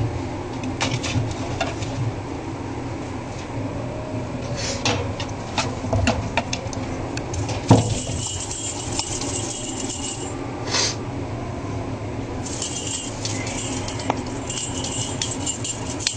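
Light clinking and jingling, with a few sharp clicks. The jingling comes in stretches over the second half.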